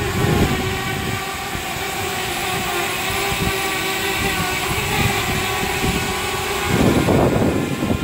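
DJI Spark quadcopter's propellers whining steadily in several tones over an even hiss, as it hovers and manoeuvres close by. The sound swells into a louder rush for about a second near the end.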